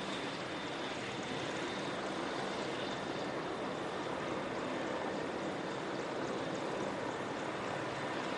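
MCH-101 (AW101) helicopters running: a steady rush of rotor and turbine noise with a thin, high turbine whine, slowly growing louder.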